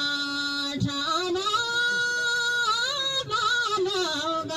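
Thadi bhaka folk song sung by one unaccompanied voice in long held notes. The pitch steps up about a second in and wavers and slides down near the end.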